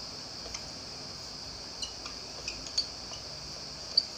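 Marker pen writing on a whiteboard: a scatter of short squeaks and taps from the tip, over a steady hiss.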